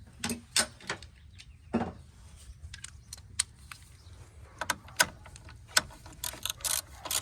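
Irregular metallic clicks and knocks of a ratchet with a 13 mm socket being fitted and worked during a car battery installation.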